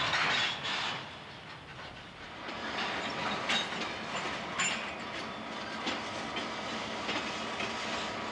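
Freight train rolling past, its cars' wheels clicking over rail joints in an uneven rhythm, with a louder rush of noise in the first second.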